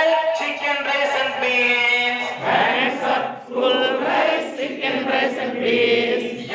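A group of men and women singing an action rhyme together in chorus, in sung lines with short breaks between them.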